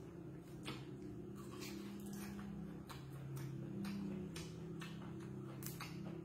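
Close-up eating sounds: a mouth chewing with irregular wet clicks and crisp snaps, several a second, over a steady low hum.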